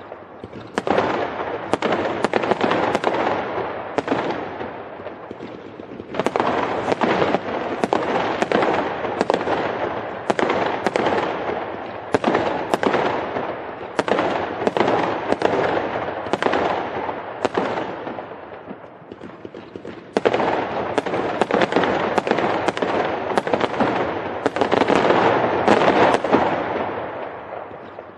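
Fireworks going off in dense volleys of sharp bangs over a continuous crackle. A fresh volley starts suddenly about half a second in, again about six seconds in and again about twenty seconds in, and each one gradually fades before the next.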